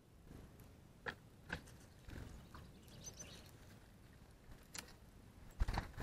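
Small songbirds, greenfinches and tits, at a ground feeding spot: a few sharp chips and clicks, a pair of faint high chirps around the middle, and a brief flurry of wingbeats just before the end, the loudest sound.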